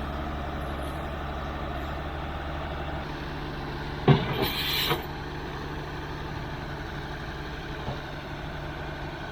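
Heavy diesel equipment idling steadily, with a brief louder burst and hiss about four seconds in.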